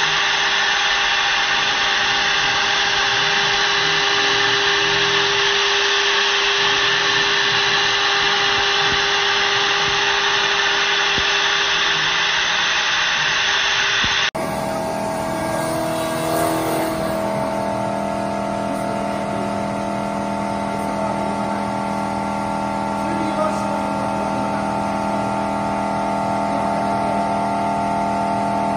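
CNC wood turning lathe spinning a spindle blank while its cutter turns it into a baluster: a steady motor whine under the rasp of the cutter on the wood. About halfway through, the sound changes abruptly to a different lathe's steady hum, with several held tones under the cutting noise.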